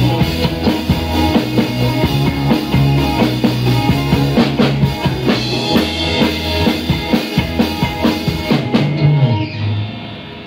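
Live instrumental rock played by a trio on electric guitar, bass guitar and a Sonor drum kit, with regular drum hits over a steady bass line. The music drops off in level near the end.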